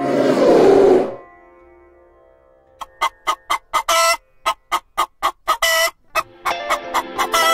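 Common pheasant clucking: a rapid run of short, sharp clucks, about three to four a second, starting a little under three seconds in. Before it, a loud rushing noise cuts off about a second in.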